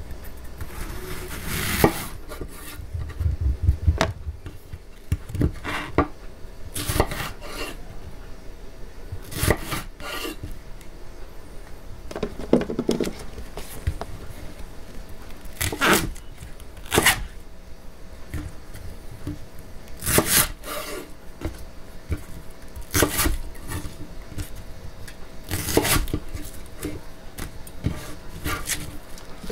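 Kitchen utensils knocking and clinking against dishes and a board during food preparation: sharp single knocks and short clatters at irregular intervals, one every second to few seconds, over a faint steady hum.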